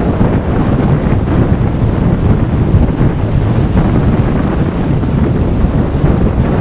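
Strong wind buffeting the microphone: a loud, low rumble of noise that rises and falls a little with the gusts.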